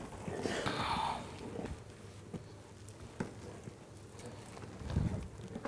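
Flour pouring from a plastic tub into a wooden dough trough, a soft hiss about half a second in, while dough is mixed by hand with faint scattered soft taps and rustles.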